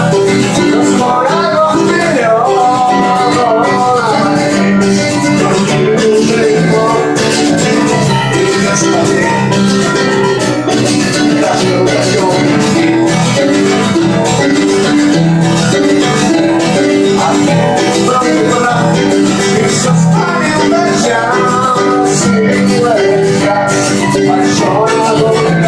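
Guitar music: a steady, rhythmic guitar accompaniment with a melody line above it.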